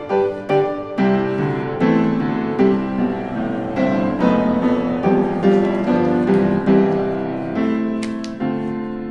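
Background music: piano playing chords and a melody.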